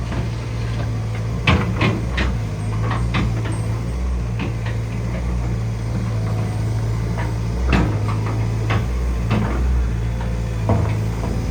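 Hyundai HX160L excavator's diesel engine running steadily, with irregular sharp knocks and clanks every second or so.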